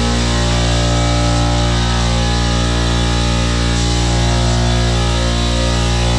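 Background music: loud distorted electric guitar rock with a heavy, steady low end.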